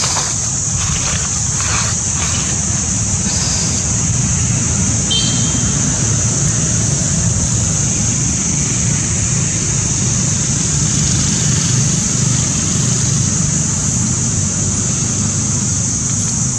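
Outdoor ambience: a steady high-pitched insect drone over a low rumble, with a brief high chirp about five seconds in.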